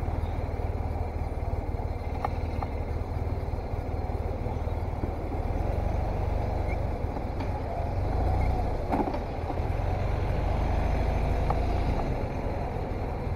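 BMW R 1200 RT's boxer twin engine running as the motorcycle rolls slowly along a city street, heard from the rider's seat as a steady low rumble. It swells a little about two-thirds of the way through, with a few faint clicks.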